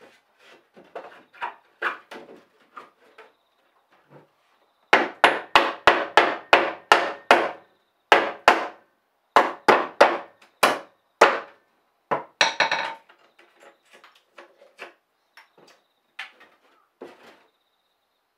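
Hammer blows on wood. A few light taps, then a loud quick run of about four or five strikes a second lasting a couple of seconds, then slower strikes about two a second, a short rattle, and scattered light knocks near the end.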